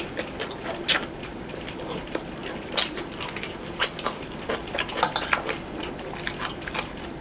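Metal cutlery clinking against ceramic plates and bowls during a meal: a string of light, irregular clicks, with sharper clinks about 1, 3, 4 and 5 seconds in.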